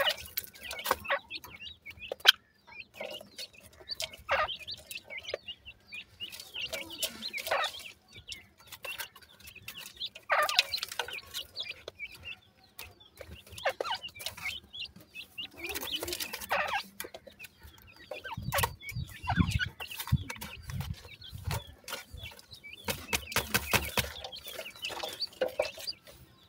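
A group of young francolin (teetar) chicks peeping and clucking softly as they peck and scratch in loose soil, with scattered sharp clicks of beaks and feet in the dirt. A few low thumps come in past the middle.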